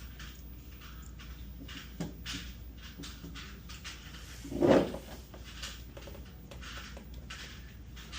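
Small clicks and rustles of hands working wires and plastic crimp connectors, over a steady low hum, with one louder short thump about halfway through.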